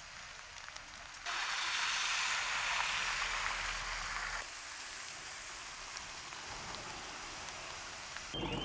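Heavy rain falling on a waterlogged street, a steady hiss that jumps suddenly louder a little over a second in, then eases slightly lower for the last few seconds.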